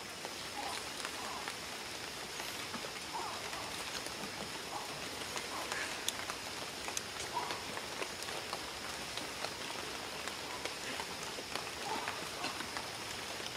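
Light rain falling steadily on wet stone and leaves, with scattered fine ticks of individual drops.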